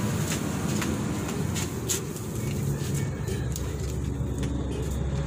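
A steady low motor rumble in the background, with a few light metallic clicks, mostly in the first two seconds, as hand tools work on a drum brake's wheel cylinder and backing plate.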